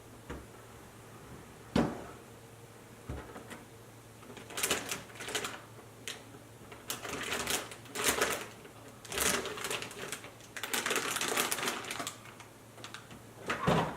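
Plastic snack bag, holding frozen pizza rolls, crinkling loudly in repeated bursts as it is handled, with a sharp knock about two seconds in and another near the end.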